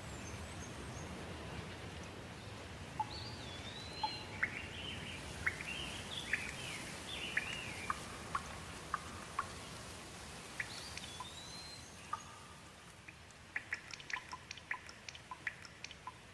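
Steady rain with a songbird singing short gliding, whistled phrases over it. In the last few seconds the rain noise drops and scattered individual drips take over.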